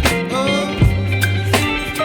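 Pop song playing between sung lines: a steady drum beat with guitar.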